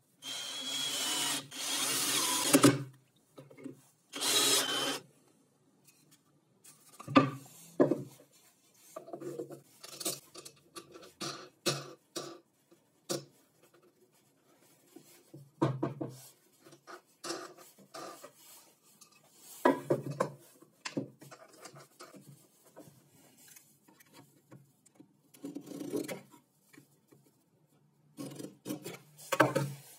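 A cordless drill drives a wood screw through a plywood block into a pine beam in two runs: the first about two and a half seconds long, the second shorter, about four seconds in. Then come scattered knocks, taps and rubs of wooden parts being handled on a plywood table top.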